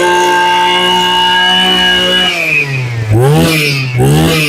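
Small Maruyama Big M KC20NX brush cutter engine running at a steady fast speed, freshly pull-started. About two seconds in its speed drops, and it is then revved up and down in quick throttle blips.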